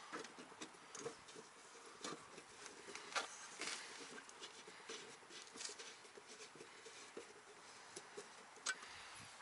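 Faint, irregular small clicks and scrapes of a hand screwdriver turning a screw into a headlight's metal retaining ring.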